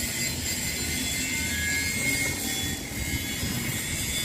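Mini excavator's engine running steadily, a low rumble under a high hiss with a faint steady whine, as the machine works its bucket.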